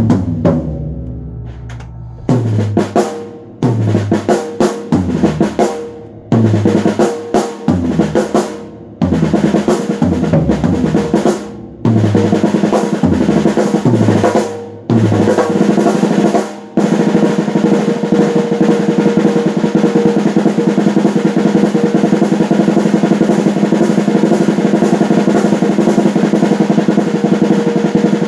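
Drum kit being played: a ringing hit fades out, then come short fills of snare and low tom or bass drum strokes broken by brief gaps. About two-thirds of the way in, these give way to a continuous snare drum roll.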